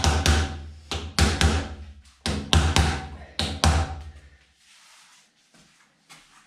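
Rubber mallet knocking a plastic rim protector ring down onto the edge of an alloy wheel with its tyre mounted: a quick series of sharp blows, about ten, each with a short low ring after it, stopping about four and a half seconds in.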